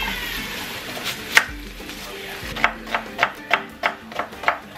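Kitchen knife cutting a red onion on a wooden cutting board: one sharp knock about a second in, then a run of seven quick strokes, about three a second, in the second half.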